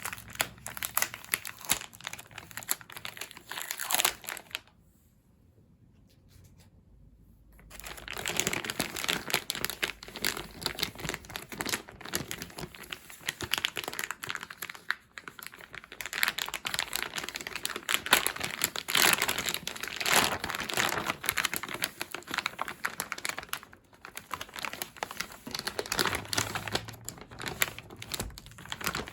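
Plastic wrapping and packaging being crinkled and torn as a photobook set is unwrapped, in irregular rustling bursts with a pause of a few seconds about five seconds in.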